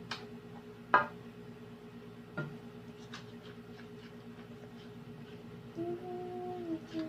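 Steady hum of an air conditioner, with a few sharp clicks and taps from handling things, and a short held tone near the end.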